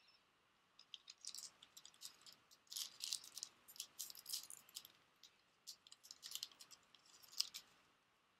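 A Cardfight!! Vanguard booster pack's foil wrapper crinkling as it is handled and torn open: a quick, irregular run of crackles, busiest in the middle, with a sharper crackle near the end.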